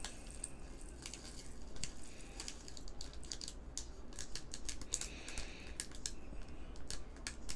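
Diamond painting drills, small resin rhinestones, poured from a plastic zip bag into a small clear storage bottle, falling in as a run of light, irregular clicks with a few busier clusters.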